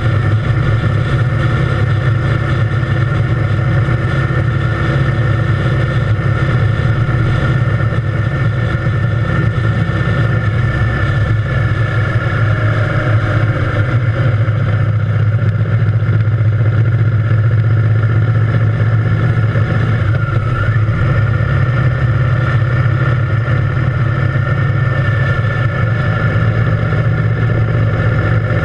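Triumph Thunderbird Storm's parallel-twin engine running at a steady cruising speed, mixed with the rush of wind past the bike.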